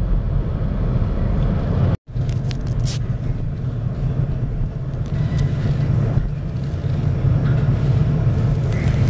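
Car interior while driving: steady low engine and road rumble. The sound cuts out completely for an instant about two seconds in, then the same rumble carries on.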